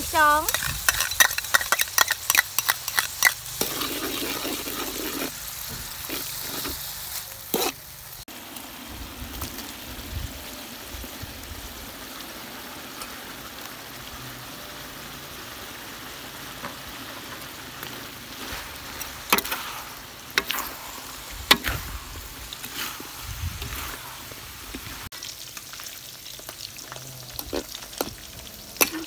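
Food frying in hot oil in a metal wok, with a steady sizzle. A metal spatula scrapes and clicks against the wok in quick strokes during the first few seconds and now and then afterwards as the food is stirred. Later, shredded cabbage sizzles as it is stirred in the wok.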